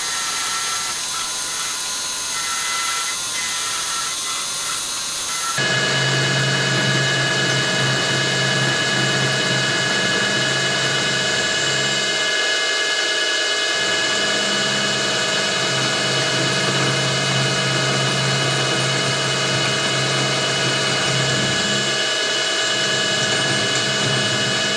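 Milling machine spindle running a 6 mm carbide three-flute end mill at about 1000 RPM, hand-fed through a slot in metal: a steady whine with the sound of cutting. The sound changes abruptly about five seconds in, and a lower hum drops out briefly twice.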